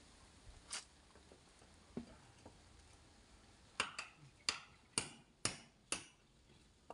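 Sharp knocks, a single one or two at first, then a steady run of about six, roughly two a second, starting about four seconds in.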